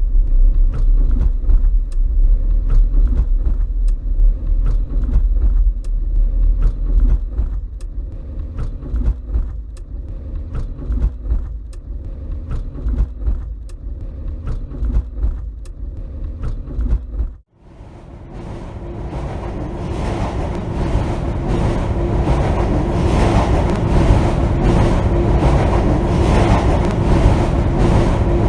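Sound collage of the sculpture's original soundtrack: a deep rumble with scattered clicks, cut off abruptly about seventeen seconds in, then a noisy wash with a steady hum that slowly swells.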